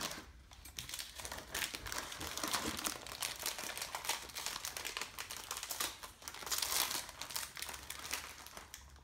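Foil booster packs crinkling and rustling as they are handled and cut open with scissors: a dense, continuous run of crackles, loudest a little past the middle.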